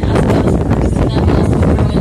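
Wind buffeting the microphone on the open deck of a moving harbor cruise boat, over the low rumble of the boat's engine and water. The noise is loud and unbroken, with a deep, fluttering low end.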